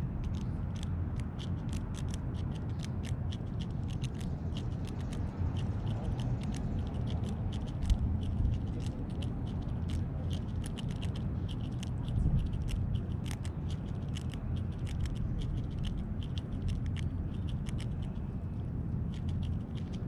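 Rapid, irregular sharp clicks and scrapes, several a second, like a small rodent gnawing at a nut or seed. A steady low rumble runs underneath.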